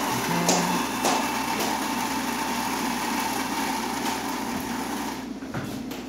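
Gaggia Babila espresso machine's built-in ceramic burr grinder running, grinding beans for a shot of espresso, with a few sharp crackles in the first two seconds, and stopping about five seconds in.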